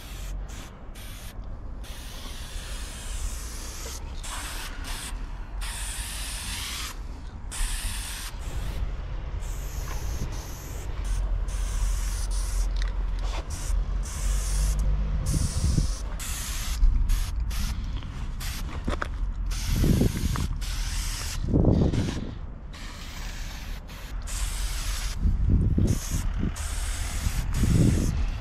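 Aerosol spray-paint can hissing as white paint is laid down, in short and longer bursts with brief pauses in between. A steady low rumble runs underneath, swelling louder a few times in the second half.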